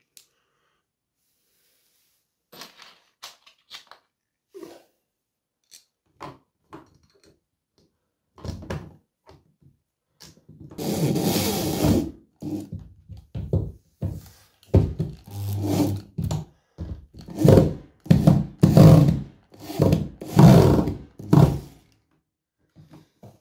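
Electric drill driving screws to fix a plastic security lock back onto a uPVC door frame: a few faint handling clicks, then the drill running for about a second and a half, followed by a string of short trigger bursts.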